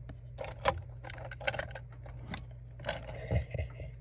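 Sharp clicks and scrapes of a die-cast Toyota Land Cruiser toy car being handled and rolled onto a gritty, gravel-textured base, with a few soft thumps as it is set down near the end. A steady low hum runs underneath.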